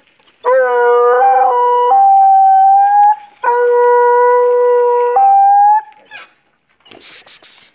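A paca-hunting hound baying with two long, loud howls at the bank where it is searching, each howl stepping up or down in pitch partway through. A short scratchy noise follows near the end.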